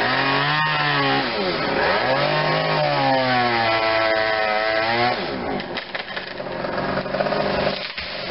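Chainsaw revving up and down in repeated swells while cutting limbs from a tree. After about five seconds it falls quieter, with a few sharp knocks.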